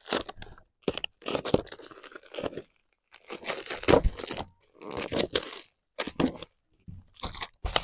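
Cold Steel Finn Wolf folding knife slicing through packing tape and cardboard along a shipping box seam, the tape tearing and scraping in about five separate strokes with short pauses between them.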